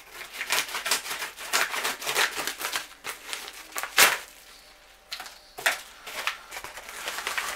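A padded paper mailer envelope being handled and torn open by hand: crinkling and rustling paper with a sharp, loud rip about four seconds in.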